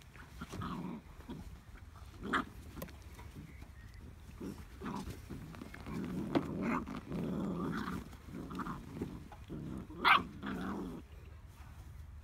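Hungarian Vizsla puppy growling in play, with scuffling as it moves through a fabric play tunnel. A few short, sharp sounds stand out, the loudest about ten seconds in.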